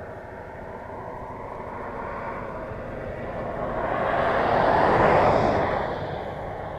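A motor vehicle passing by: its noise builds slowly, peaks about five seconds in, then quickly fades.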